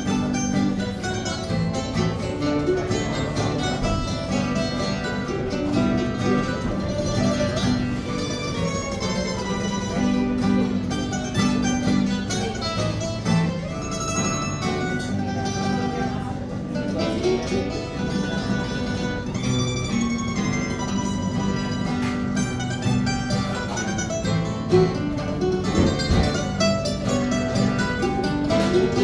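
Two acoustic guitars and a mandolin playing an Italian tune together, plucked string melody over strummed chords.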